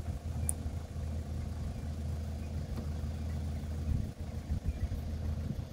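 An engine idling steadily, heard as a low, even hum.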